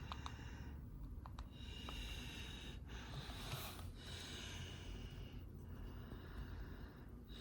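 A person breathing softly close to the microphone, in slow even breaths over a steady low hum, with a few faint clicks in the first second or so.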